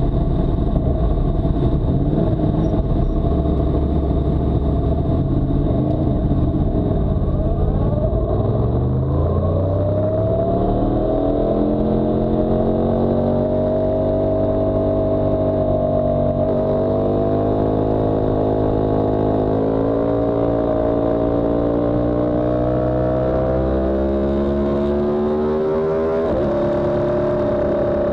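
Yamaha R1M's crossplane inline-four engine heard from the bike. It runs roughly at first, then accelerates with rising pitch from about a third of the way in. It then holds at steady high revs, with a couple of brief pitch steps, one in the middle and one near the end.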